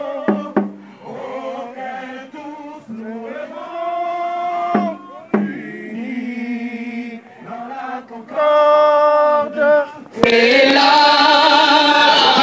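A group of people singing together in unison, with long held notes. About ten seconds in the singing suddenly becomes much louder.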